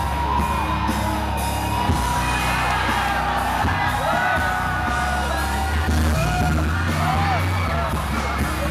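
Live rock band playing through a hall PA, with audience members yelling and whooping over the music.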